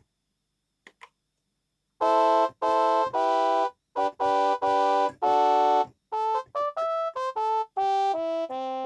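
Kurzweil K2000 synthesizer playing a factory program dry, with no effects: after about two seconds of near silence, a few held chords, then a quicker run of shorter notes that ends on lower notes.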